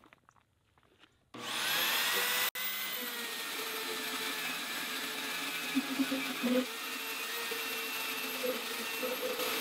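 Vevor portable metal-cutting bandsaw switched on about a second in, its motor whining up to speed, then running steadily as the blade cuts through steel stock under the saw's own weight, with no down pressure.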